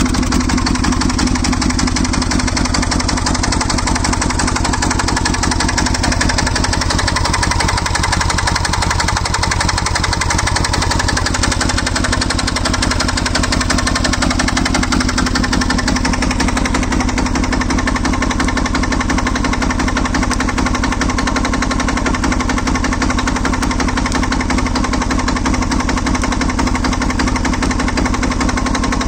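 Diesel engine of a motorcycle running steadily, its firing strokes making a fast, even, hammering clatter.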